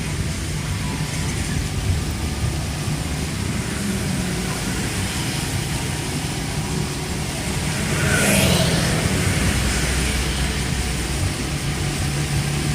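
Inside a moving car in heavy rain: a steady low rumble of engine and road with a hiss of rain and wet tyres. About eight seconds in, a louder swoosh swells and fades.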